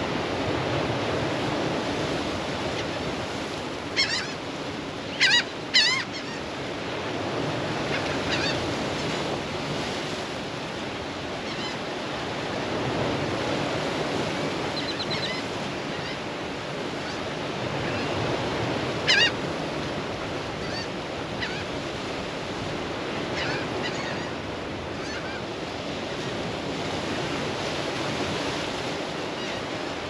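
Steady rush of sea waves against a rocky shore, with short bird calls over it: three loud ones around four to six seconds in, another loud one about two-thirds of the way through, and fainter calls scattered between.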